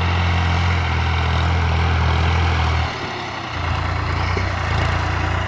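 New Holland TT55 tractor's diesel engine running steadily as it pulls a plough, a low drone. The drone dips briefly about three seconds in and then comes back.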